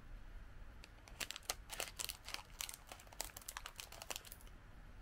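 A shiny metallic snack wrapper crinkling and crackling as it is handled in the hands. It is cut with scissors near the end.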